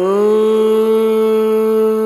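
Background song: a singer holds one long, steady note over the music.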